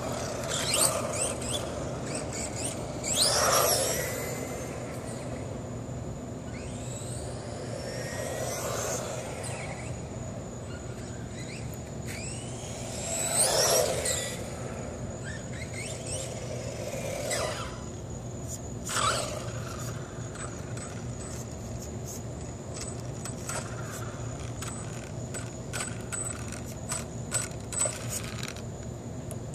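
Dromida RC buggy with a brushless motor making several passes: the motor's high whine sweeps up and down in pitch as it speeds by, swelling and fading with each pass. Tyres scrabble and click on the asphalt, and it is loudest on a close pass at the very end.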